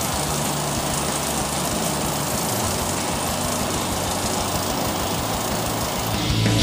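Treadmill running steadily at about 10 km/h, its motor and belt making an even mechanical noise with a fast low pulsing, while a Lego Technic 8256 go-kart's wheels roll on the moving belt.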